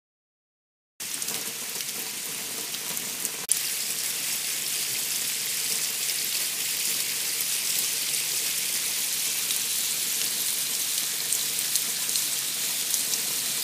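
Water running down a copper ring-link rain chain, a steady hissing splash as it pours through and off the links. It starts about a second in, with a single click and a slight rise in level about three and a half seconds in.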